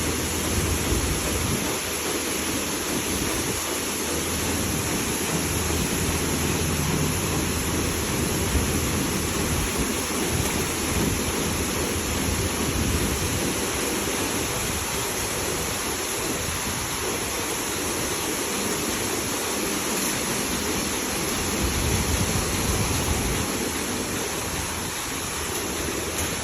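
Automatic car wash spraying water over a car: a steady, unbroken rushing hiss.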